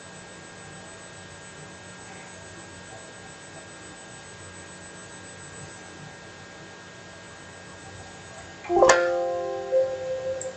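Faint steady hum and hiss, then about nine seconds in a computer's Windows warning chime sounds as a warning dialog pops up: a sudden pitched chime of several notes that rings out, with a second note about a second later.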